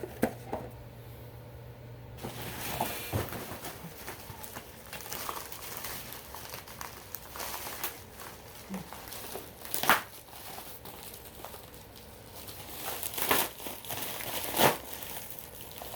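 Packaging crinkling and rustling as items are handled and unwrapped, starting about two seconds in, with a few sharper crackles and knocks in the second half.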